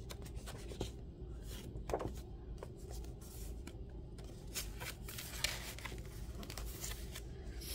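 Grimoire pages being handled and turned: scattered soft paper rustles and light taps over a faint low hum.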